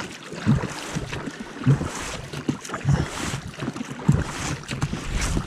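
Oars of an inflatable rowboat working in the water in quick strokes, a low thump with each stroke about once a second, with wind buffeting the microphone.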